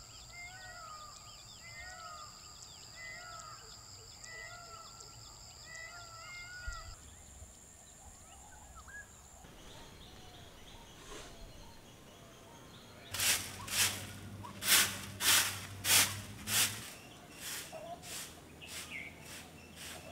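Outdoor rural ambience: a bird repeats a short call about once a second over a steady high-pitched insect drone. About two-thirds of the way through comes a loud run of sharp sounds, about two a second, lasting some four seconds.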